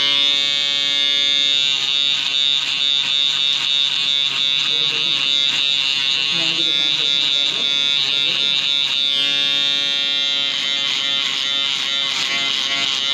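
Electric hair clipper with a comb guard buzzing steadily as it is run through a beard along the cheek and jawline.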